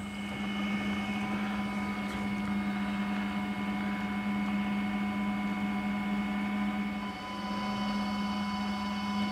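Electric outboard motor running with a steady, even-pitched whine, dipping briefly about seven seconds in.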